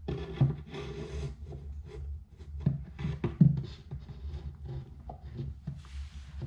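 Bridge clamp being fitted through an acoustic guitar's soundhole, its wooden jaw and steel bar knocking, clicking and scraping against each other and the guitar. The loudest knocks come about half a second and three and a half seconds in.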